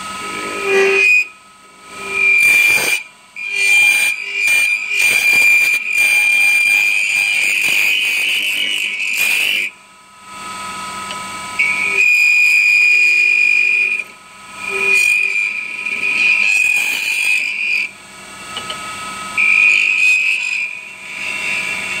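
Hand-held lathe scraping tool squealing against a spinning acrylic knob blank: a loud, high-pitched whistling screech in stretches of one to six seconds, breaking off and starting again several times. The squeal comes from vibration and from the tool scraping the acrylic rather than cutting it.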